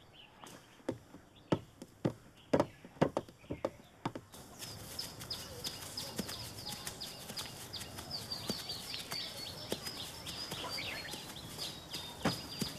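Footsteps, a string of separate knocks over the first few seconds, then a steady outdoor background of birds chirping rapidly and continuously. A single thump comes near the end.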